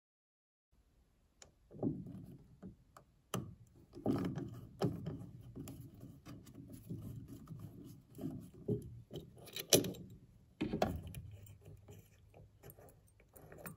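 Flat-blade screwdriver turning a waxed oval-head screw out of an epoxy-filled hole in wood: irregular clicks and snaps of the blade in the slot over a creaking, scraping sound as the threads back out, the wax letting the screw release from the epoxy. The sharpest snaps come a little before and just after ten seconds in, and it goes quieter near the end as the screw is turned by hand.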